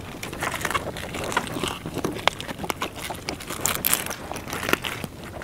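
Scattered clicks, knocks and rustling from fish being taken out of a gill net by hand.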